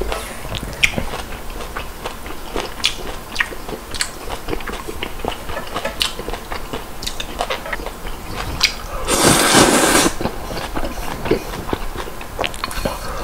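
Close-up eating sounds of a person eating spicy instant ramen noodles: wet chewing and lip-smacking clicks, with one long, loud slurp of noodles about nine seconds in.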